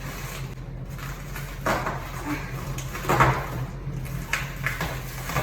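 Items from a package being handled and set down: a few short knocks and rustles, the loudest about three seconds in, over a steady low hum.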